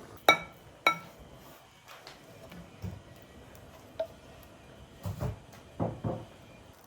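Dishes and glassware clinking: two sharp, ringing clinks in the first second, then a few duller knocks spread through the rest.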